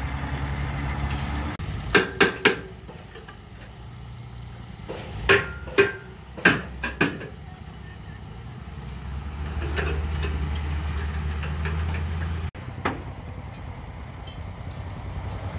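Construction-site machinery running with a low, steady engine drone, broken by sharp knocks: three quick ones about two seconds in, then several more around five to seven seconds.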